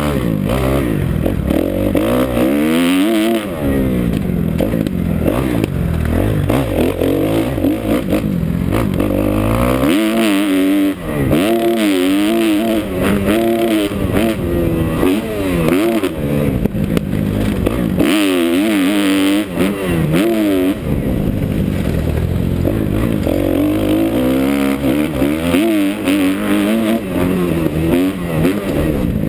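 2011 Kawasaki KX250F's four-stroke single-cylinder engine revving up and falling back over and over as the rider works the throttle and gears along the track, heard from the rider's helmet.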